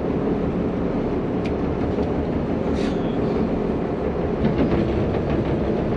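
Steady low rumble of a boat's engine running, with a few faint light ticks over it.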